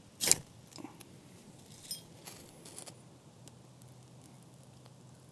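Ferro rod scraped hard with a striker: one sharp rasp about a quarter second in, striking sparks onto a cotton ball, followed by a few lighter scrapes and clicks over the next two or three seconds.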